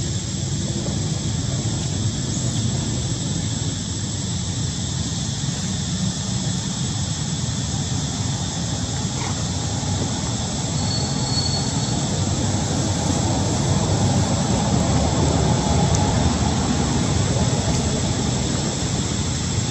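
Steady outdoor background noise: a low rumble with a constant thin high whine above it, and no distinct calls or knocks.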